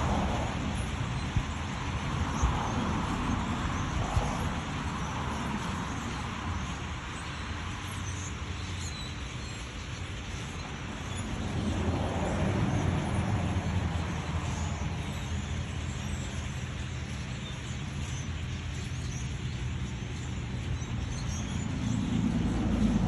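Steady rumble of road traffic, swelling and easing a few times, with faint scattered high chirps from a large flock of birds.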